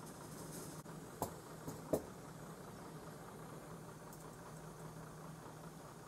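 Small gas canister backpacking stove burning with a steady rushing hiss, with a low hum under it. Two sharp clicks sound about a second in and near two seconds in, the second the louder.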